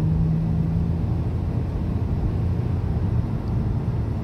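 Inside the cabin of a 2007 Chevrolet Impala gaining speed on the road: a steady low rumble of engine and tyres. A low steady hum sits on top for about the first second.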